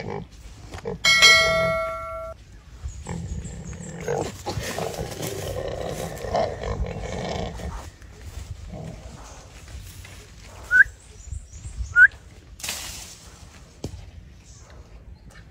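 Wild boar squealing while a Komodo dragon pins and bites it. A long, loud, high squeal comes about a second in, then a rougher, noisier stretch of struggling sounds, and two short rising squeaks later on.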